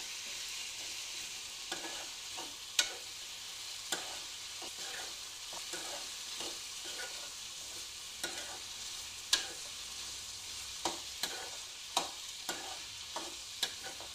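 Chopped tomatoes and onions sizzling in a metal kadai while a spatula stirs them, scraping and clinking against the pan at irregular moments; the sharpest clicks come about three and about nine seconds in.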